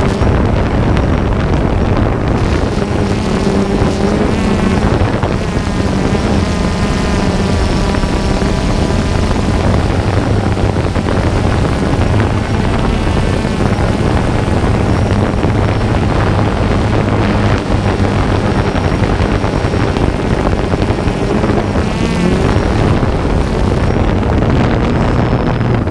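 Camera drone's motors and propellers running with a steady hum, its pitch wavering up and down at times, with wind on the microphone.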